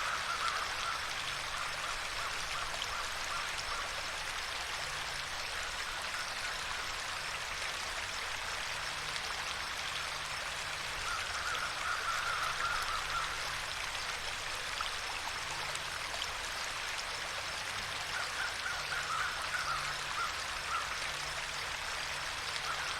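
Steady flowing water, like a small stream running over stones. Brief bursts of animal calling rise over it at the start, about twelve seconds in, and again around twenty seconds in.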